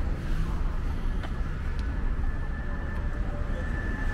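A car driving past close by over a steady rumble of city traffic. A faint, thin, steady high whine comes in about a second and a half in.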